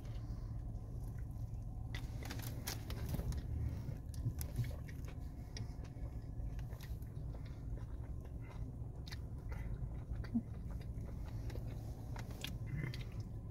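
A person biting and chewing a crispy breaded chicken wrap close to the microphone, with scattered crunches and clicks, over a steady low hum.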